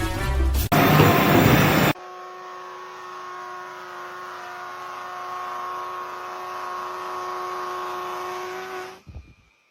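A loud rush of noise for about a second, then a steady mechanical hum at constant pitch, like a motor or engine running at an even speed, that cuts off suddenly near the end.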